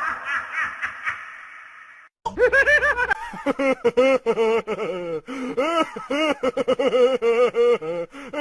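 Two meme sound-effect clips in a row, both voices. First a laughing or gasping voice fades away. Then, after a brief silent break, comes a fast run of short, high-pitched laugh-like vocal notes.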